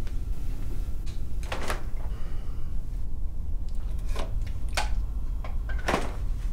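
Refrigerator door being opened and a glass bottle taken out: several separate clicks and knocks over a steady low rumble.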